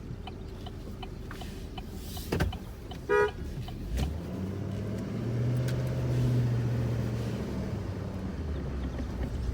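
Truck engine running, heard from inside the cab, pulling harder for a couple of seconds past the middle. There is a short toot of the horn about three seconds in, and a couple of knocks from the cab just before and after it.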